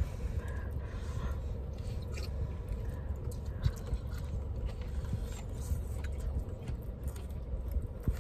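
A person chewing a mouthful of soto, noodles and bean sprouts, close to the microphone, with small wet clicks and crunches. A steady low hum runs underneath.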